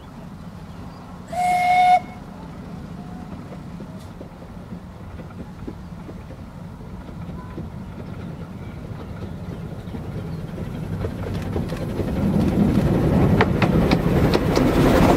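Miniature steam locomotive No.300 'Monty', a 15-inch gauge 0-4-2T, gives one short whistle about a second in. The train then approaches, its running noise growing steadily louder toward the end, with wheel clicks over the rails.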